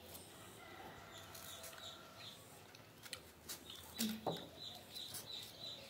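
A small bird chirping faintly, with a quick run of short high chirps at one pitch from about four seconds in, over a quiet background with a few soft clicks.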